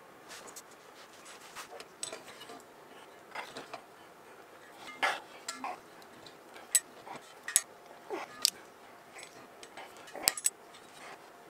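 Irregular light metallic clinks and taps of small copper boiler parts being handled and fitted by hand on a workbench, with a few sharper clicks in the second half.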